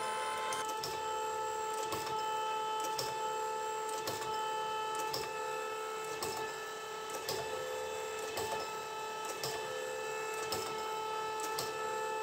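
An old surface grinder running, rebuilt with a new motor and new bearings: a steady hum with several held tones, and a click or knock about once a second.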